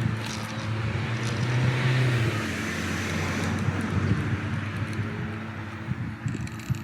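RC rock crawler's electric motor and geared drivetrain running under load as the buggy climbs across rocks, with a steady low hum and tyre scrabble, loudest about two seconds in and then easing off.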